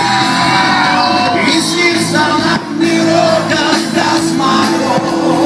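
Amplified live band music with singing, and a crowd shouting and whooping over it.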